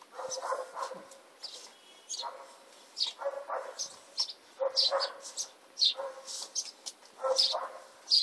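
Golden retriever puppies nursing: a run of short squeaks, whimpers and grunts, a couple a second, mixed with high little sucking squeaks.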